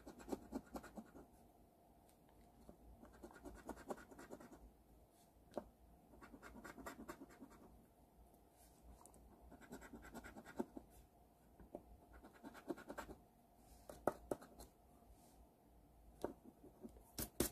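Scratch-off lottery ticket being scratched: faint spells of quick scraping strokes, each a second or two long, with short pauses between them.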